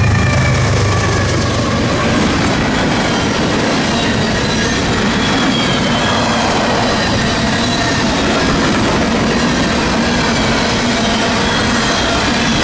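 Freight train of grain hopper cars rolling past, with wheels clacking over the rail joints and faint wheel squeal.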